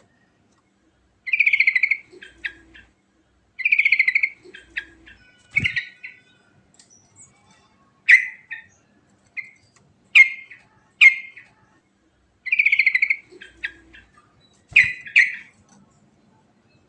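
Yellow-vented bulbul singing in loud bursts. Three times a fast trilled phrase of about half a second ends in a few short notes, and single sharp chirps fall between them. Two brief low knocks come mid-way and near the end.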